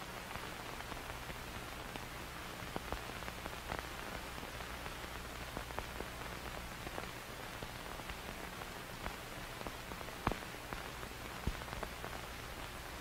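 Old-film soundtrack noise: a steady hiss and low hum with scattered crackles and pops, the loudest pops about ten and eleven and a half seconds in.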